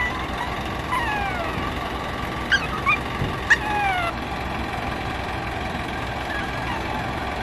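Gulls calling: a few short, harsh cries that fall in pitch, mostly in the first half, over a steady low rumble.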